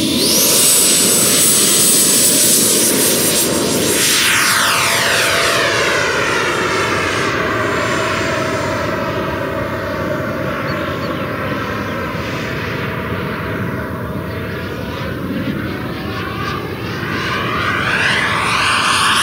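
Electric ducted-fan model jet at high power: a loud rushing roar with a thin high fan whine. From about four seconds in, the sound sweeps and swirls as the jet climbs away, then grows louder again near the end as it comes back.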